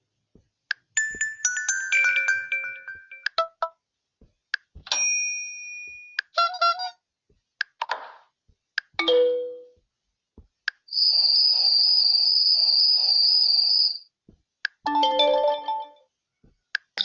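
Huawei Y6 Pro smartphone playing its built-in alert tones one after another: a string of short electronic chimes, beep runs and a falling tone, separated by brief silences and small clicks. About two-thirds of the way through comes a longer, steady, high trilling ring lasting about three seconds.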